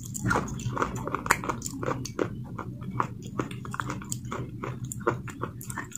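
Close-up mouth sounds of someone chewing a wet grey paste: irregular sticky clicks and smacks, several a second, over a steady low hum.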